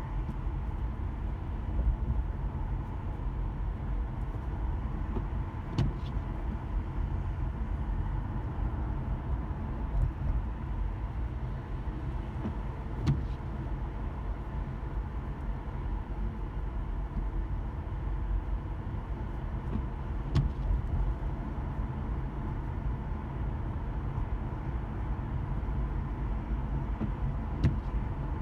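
Car driving slowly in rain, heard from inside: a steady low road-and-engine rumble with a faint steady hum, broken by a few short, sharp clicks or knocks at irregular intervals.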